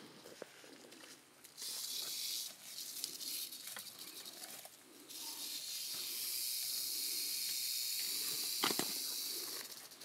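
Rattlesnake rattling: a steady high dry buzz in two bouts, a short one about a second and a half in and a longer one from about five seconds in that stops just before the end. Footsteps crunch faintly in dry leaves and brush, with one sharp snap near the end.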